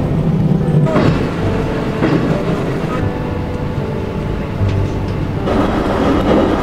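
A train running on rails, heard from inside the driver's cab: a steady rumble with some steady tones and a few wheel clacks, changing abruptly in character about one, three and five and a half seconds in.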